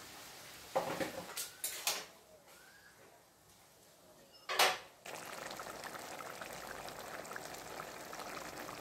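A few knocks and a short loud scrape of a spatula in a metal kadai. From about five seconds in comes a steady bubbling sizzle of bottle gourd pieces cooking in turmeric-spiced gravy.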